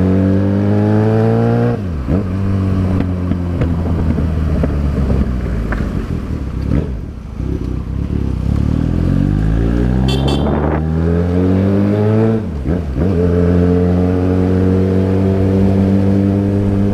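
Yamaha XJ6 motorcycle's inline-four engine pulling through the gears. The engine note rises and drops sharply at a gear change about two seconds in, eases off and dips around the middle, then climbs again with another sharp drop at a shift a little past halfway, and holds a steady cruise near the end.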